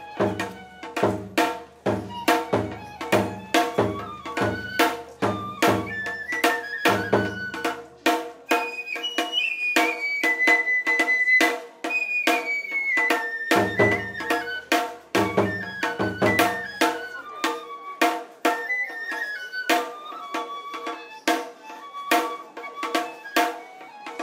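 Tsukuda-bayashi festival music: a shinobue bamboo flute plays a rising and falling melody, holding one high note near the middle. Under it run steady, sharp percussion strikes, and clusters of deep strokes on a large barrel drum come and go.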